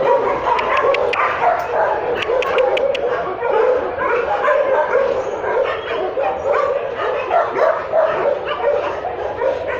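Many shelter dogs in their kennels barking and yelping at once, a continuous overlapping din with no pause.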